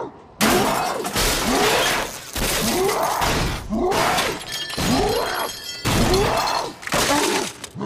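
Cartoon sound effects of a large metal machine breaking apart: a run of crashes and shattering, about one a second.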